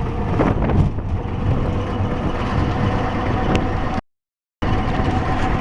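Tuk-tuk (auto-rickshaw) under way, heard from the passenger seat: the steady noise of its small engine and road rumble. The sound cuts out completely for about half a second near the end.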